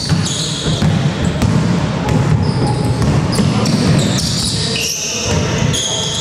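Basketball game in play on an indoor court: the ball bouncing, with short high squeaks of sneakers on the floor.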